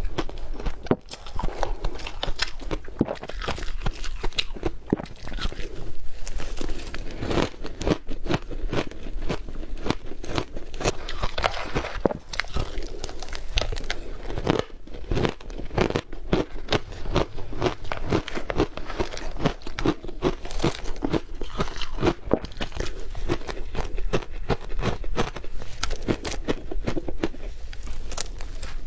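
Close-miked biting and chewing of yellow powdery ice: a dense, continuous run of crisp crunches and crackles with no pauses.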